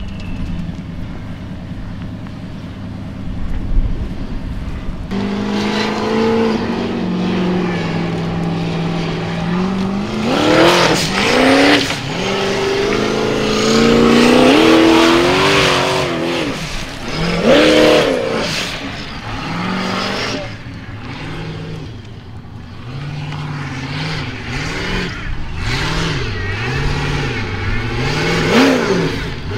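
Formula Offroad competition vehicle's engine revving hard, its pitch climbing and falling again and again; it jumps louder about five seconds in, and near the end it swings up and down about once a second.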